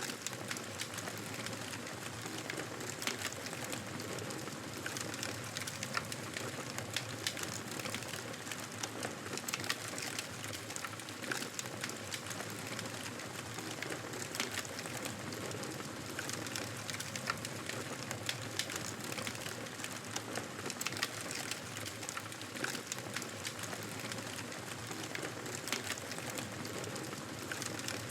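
Wood fire in a fireplace crackling steadily, with a constant hiss of flame and many small irregular pops and snaps.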